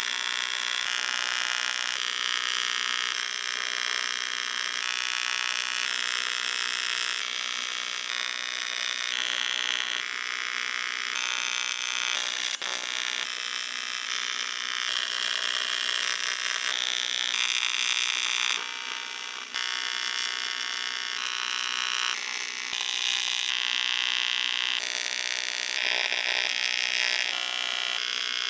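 TIG welding arc on aluminium sheet: a steady, high electric buzz, its tone shifting in abrupt steps every second or two, with a short drop a little past the middle.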